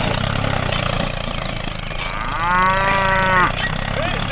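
A cow moos once, a single long call a little past the middle, over the steady low running of a small engine.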